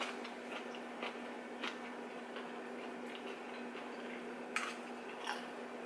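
Scattered small clicks and taps of people eating dumplings at a table, the sharpest about four and a half seconds in, over a steady low hum.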